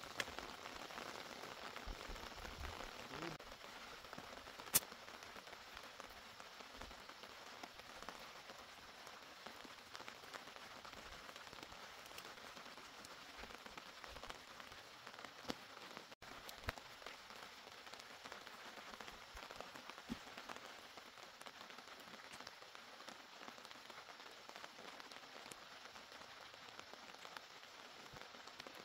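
Steady, faint hiss of rain falling on the ground and vegetation, with a few sharp ticks scattered through it, the loudest about five seconds in.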